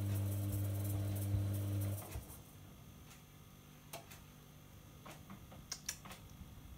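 Front-loading washing machine running with a steady low hum that cuts off abruptly about two seconds in, followed by a few faint clicks.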